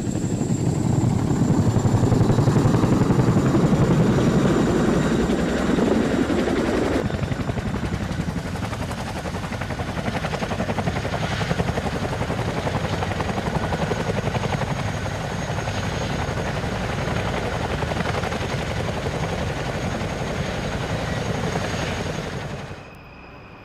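AH-64D Apache helicopter running, its rotor making a rapid, even beat over the high steady whine of its twin turboshaft engines. The sound is loudest for the first few seconds, changes abruptly about seven seconds in and carries on steadily, then drops away sharply near the end.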